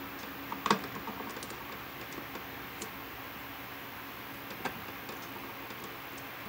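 Vinyl electrical tape pulled off the roll and wrapped around an electrical box, giving scattered small clicks and crackles. The loudest comes about a second in and another near five seconds.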